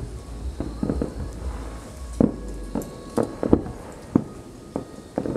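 Fireworks shells bursting overhead in an irregular series of sharp bangs, several close together in the second half.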